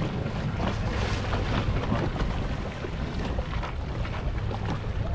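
Powerboat's engine running with a steady low rumble, with wind buffeting the microphone and water splashing against the hull.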